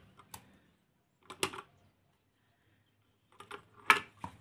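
Light clicks and taps of washed eggshells being set down one by one to drain: a single tap at first, a couple more around a second and a half in, then a quick cluster near the end with the loudest tap.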